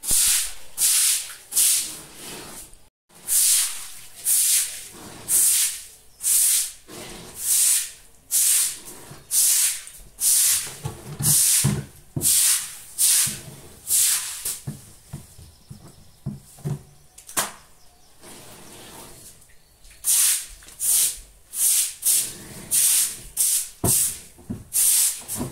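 A broom scrubbing a wet concrete floor in repeated swishing strokes, about one a second, with a pause of a few seconds about two-thirds of the way through.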